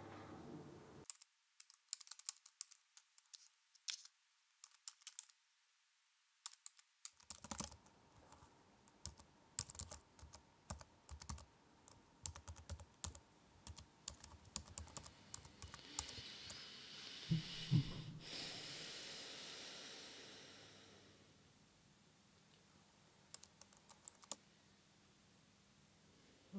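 Irregular keystrokes clicking on a laptop keyboard, in uneven runs of typing. In the second half a soft hiss swells and fades, with a low thud in the middle of it.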